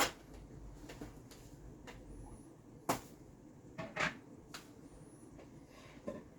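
A few scattered soft knocks and clicks of kitchen containers and lids being handled and set down on a counter.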